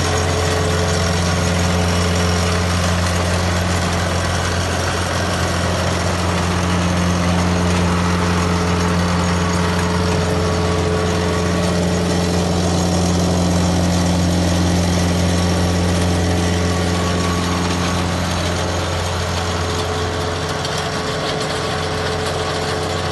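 Tractor engine running steadily while driving a Sisis Osca 3 artificial-turf brushing machine through its PTO, a constant low hum that eases slightly over the last few seconds.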